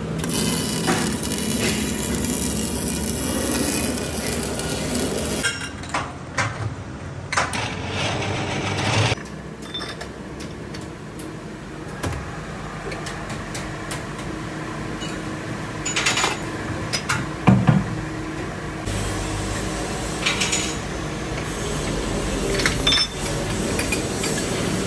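Steel tubes clanking and knocking as they are handled and set into a hydraulic pipe-bending machine, over a steady machine hum. The louder knocks come as separate strikes in the second half.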